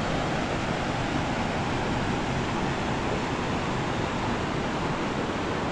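Steady rush of fast-flowing river water, an even hiss that holds without a break.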